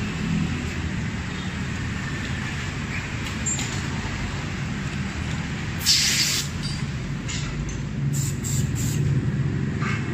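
Compressed air hissing from a blow nozzle in one loud blast about six seconds in, then a few short puffs, over a steady low machine hum. The air is pressurising a freshly welded aluminium engine case to test it for leaks.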